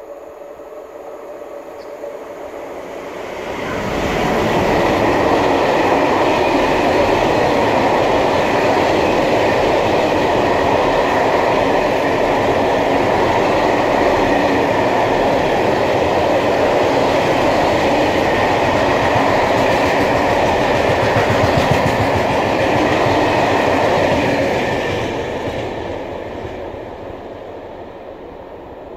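Long freight train passing close by, a steady rumble and clatter of wheels on rails. It swells as the locomotive arrives about four seconds in, holds for some twenty seconds while the covered wagons go by, then fades as the last wagons pass.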